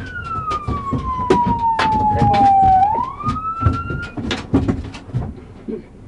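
Police car siren on a slow wail: the tone falls steadily for about three seconds, rises again, then cuts off a little after four seconds in. Sharp clicks and knocks come and go throughout.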